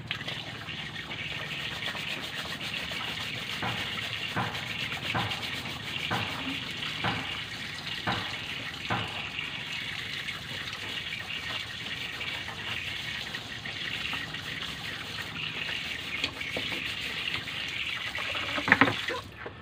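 Tap water running steadily into a steel kitchen sink while something is rinsed under it by hand, with a few short knocks and clatters in the sink; the running water stops abruptly near the end.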